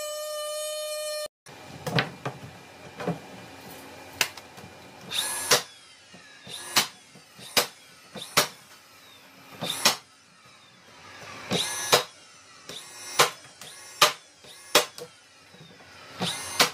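A second of music, then a DeWalt 20V cordless finish nailer shooting nails through wooden siding into the frame: about fifteen sharp shots, irregularly spaced about a second apart.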